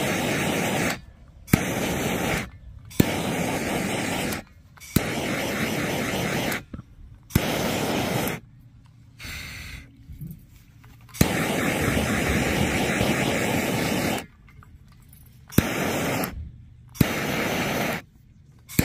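Handheld blowtorch fired in about eight short bursts, each opening with a sharp click and cutting off abruptly, the flame hissing while it shrinks heat-shrink splice tubes on submersible pump cable.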